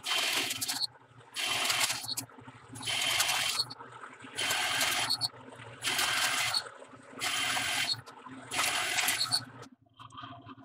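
Metal lathe turning a steel adapter: the cutting tool sounds in seven short bursts, each under a second and about a second and a half apart, over the steady hum of the running spindle, which dies away near the end.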